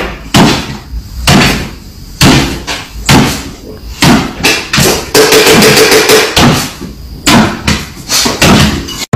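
A run of sharp knocks and thumps, irregular and about one a second, from a dog jumping up and down on its hind legs on a wooden kitchen floor while food is spooned into its bowl. A short pitched sound comes about five seconds in.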